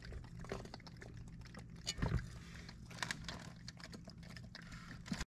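Live Dungeness crabs clicking and scraping against one another and the sides of a bucket: scattered light clicks with a louder knock about two seconds in, over a low steady hum. The sound cuts off suddenly near the end.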